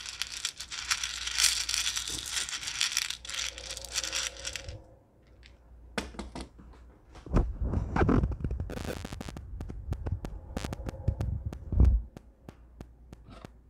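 Dry popcorn kernels rattling and crunching against each other as fingers stir through them in a small measuring cup, for about five seconds. From about six seconds in, heavy low thumps and rumbling handling noise with scattered clicks.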